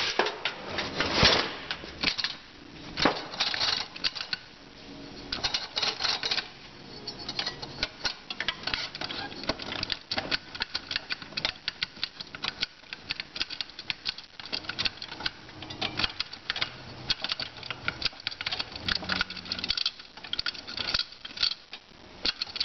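Rapid, irregular metallic clicking and clattering as the input housing of a GM 440-T4 (4T60) automatic transmission is turned back and forth to line up its clutch plate splines with the roller clutch and sprag splines so that it drops into the case.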